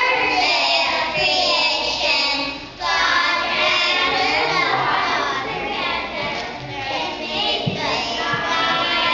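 A class of kindergarten children singing a song together.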